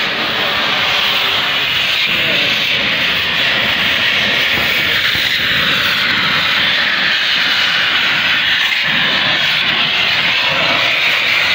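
Steam locomotive standing still and venting steam: a loud, steady hiss with no chuffing.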